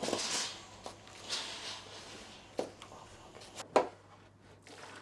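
Washing up at a stainless-steel kitchen sink: short rushes of noise and a few sharp knocks and clinks of dishes, the loudest a little under four seconds in.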